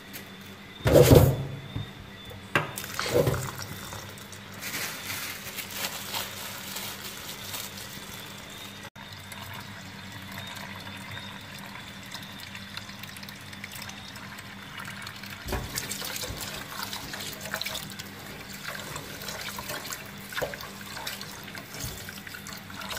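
Water splashing and sloshing as jasmine rice is washed in a pot by hand, with two louder splashes in the first few seconds.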